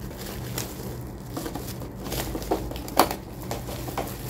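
Clear plastic bag crinkling and rustling as it is worked off a boxed humidifier, with a sharper crackle about three seconds in.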